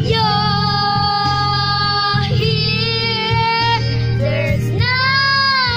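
Karaoke singing: a young girl sings into a microphone over a videoke backing track, holding long, loud notes.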